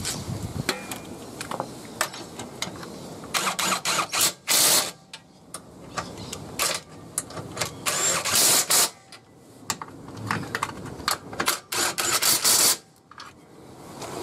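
Torque wrench ratcheting in several short spells of rapid clicks, with scattered single clicks between, as the lower control arm bolts are tightened to spec.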